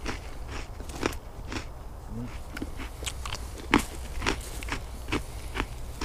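Someone biting and chewing a Leibniz chocolate biscuit close to the microphone: an irregular string of crisp crunches.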